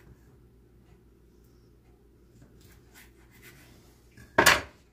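Chef's knife cutting avocado on a wooden cutting board: faint light scrapes and taps, then one short, loud knock near the end.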